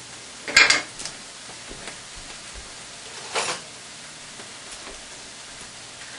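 Kitchen clatter: two short clatters of dishes and utensils, one about half a second in and another about three seconds later, over a faint steady hiss.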